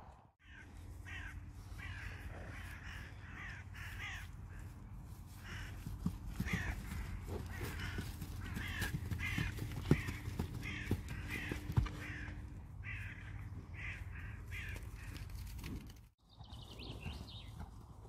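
Crows cawing again and again, several short calls a second, over a steady low rumble, with a couple of sharp knocks near the middle.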